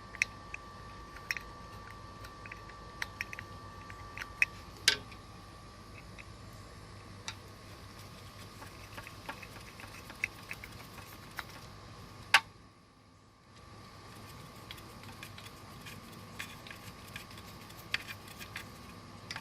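Scattered small clicks and light metal taps of small parts and tools being handled while a licence plate light assembly is fitted, with sharper clicks about five and twelve seconds in, over a faint steady high hum.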